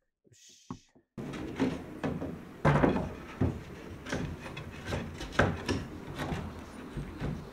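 A wooden door frame knocked and rubbed against the timber doorway as it is worked into the opening: a run of irregular wooden knocks and scrapes, the loudest about three seconds in, over a steady outdoor hiss. The first second is nearly silent apart from a few faint clicks.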